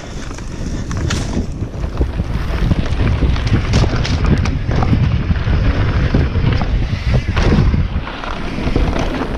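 Wind rushing over an action camera's microphone on a mountain bike descending a dirt trail at speed, with knocks and rattles from the tyres and bike over the rough ground. The rush builds over the first couple of seconds.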